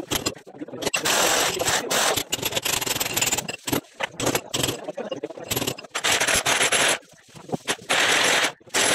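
Fast-forwarded work on a concrete wall: hammering, then an electric hammer drill near the end. The sped-up strokes blur into harsh bursts of noise with short gaps between them.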